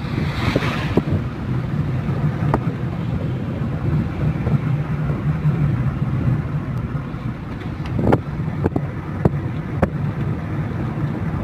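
Steady low drone of a running vehicle, with scattered sharp clicks and knocks.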